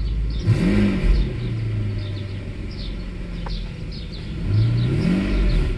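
Mercedes S600 W140's V12 engine running and revved twice. Each time the pitch rises and falls back, about half a second in and again near the end, and the revs settle back to a steady idle. This is a throttle-response check of the repaired E-gas electronic throttle module.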